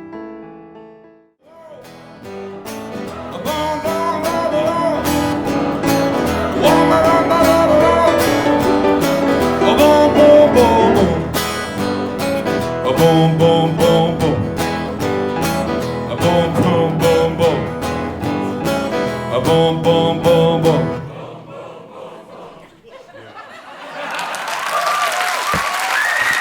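Live music: a guitar played in a steady rhythm with a voice singing over it, ending about three quarters of the way through. Audience applause starts near the end.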